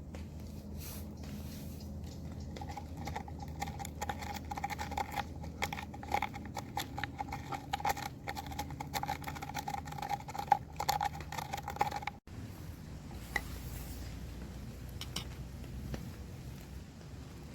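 Close-up hands-on food preparation: a dense run of small irregular clicks and wet squishing sounds that stops abruptly about twelve seconds in, over a steady low background hum.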